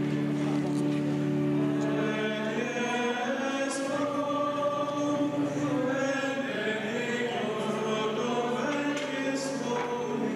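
Choir of men's voices singing a slow liturgical chant, the notes held long and changing slowly.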